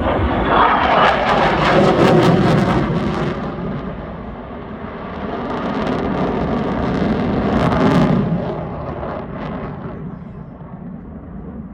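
F/A-18F Super Hornet passing by, its twin General Electric F414 turbofan engines making loud jet noise. The noise swells twice, about two seconds in and again near eight seconds, then fades away.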